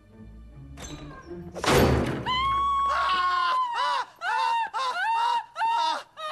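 A sudden loud crash, then a woman screaming: one long held scream, followed by a string of shorter screams. A low drone sits underneath until the long scream ends.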